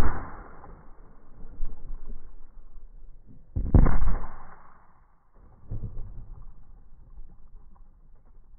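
Loud bangs from a plastic soda bottle of liquid nitrogen bursting under gas pressure inside a trash can of water: one at the very start and another about four seconds in, each fading out over about a second. A softer thud follows a couple of seconds later.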